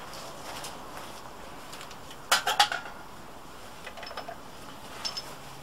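Metal pizza-oven parts being handled and set down: a quick cluster of three or four metal clanks about two and a half seconds in, then a few lighter metallic ticks with a short ring near the end.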